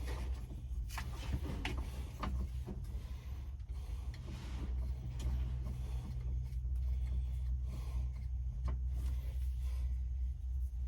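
Hands handling the heater/AC control panel and its screw: a few light clicks and some rubbing, over a steady low hum.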